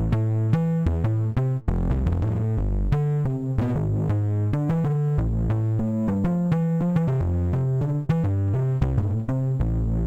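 Software synthesizer preset from Capsule's 'Grit' collection played live on a keyboard: a low, distorted tone running through a melody of short and held notes.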